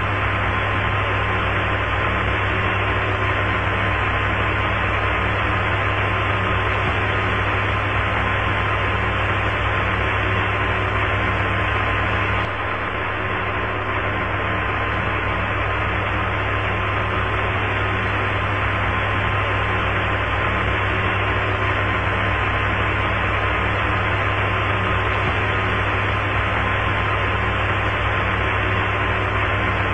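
Steady radio static hiss with a low hum and a faint constant tone, from an open air-to-ground radio channel between transmissions, cut off above the voice band. The hiss drops slightly in level about twelve seconds in.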